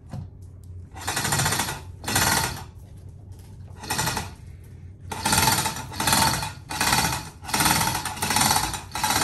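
Chains of a manual chain hoist rattling in repeated short bursts, like the hand chain being pulled through the hoist, as the boat hull is lifted. The bursts come about once a second from about five seconds in.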